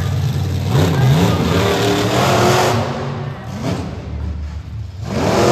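Monster truck engine revving hard in surges, its pitch climbing and falling about a second in and staying loud for a couple of seconds. It eases off, then revs up again near the end.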